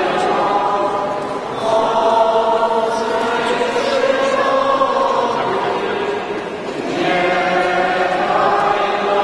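Many voices singing a slow song together in long, held notes. The singing dips briefly twice before a new phrase begins.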